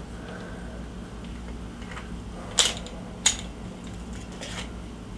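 Two sharp clicks about two-thirds of a second apart, with a fainter one a little later, from a Glock 19 pistol being handled.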